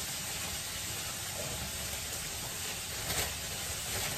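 Chicken pieces frying in a non-stick pan, a steady sizzle, with a brief louder noise about three seconds in.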